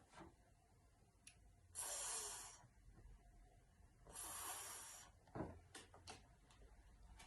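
A woman voicing a drawn-out, voiceless hissing consonant sound as phonics practice, twice, each about a second long and about two and a half seconds apart. A few faint clicks in between.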